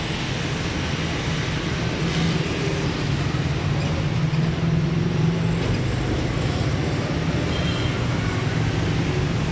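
Steady rumble of motor vehicle traffic, with a constant low engine hum.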